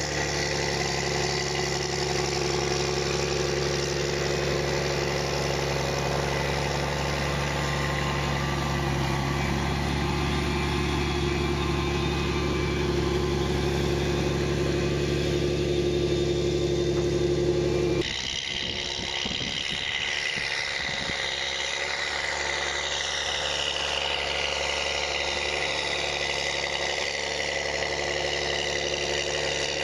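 Challenger tracked tractor's diesel engine running steadily while pushing and compacting silage. About two-thirds of the way through it cuts abruptly to a second tractor's engine, a little quieter, with its pitch shifting up and down.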